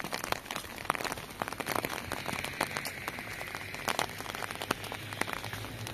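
Steady rain falling, with many irregular sharp ticks of single drops hitting close by.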